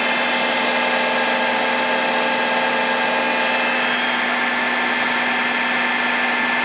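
Vernier geared-head milling machine cutting a fuller into a 5160 spring-steel sword blank with a 32 mm four-tooth Iscar indexable cutter at 1200 RPM, throwing a stream of chips. The cutting is a steady, even noise with a constant hum under it.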